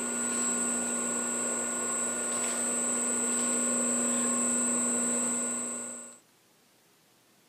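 Rebuilt 2-horsepower three-phase electric motor on new bearings running steadily at full 60 Hz speed from a variable frequency drive, a steady high-pitched whine over a lower hum. It cuts off abruptly about six seconds in.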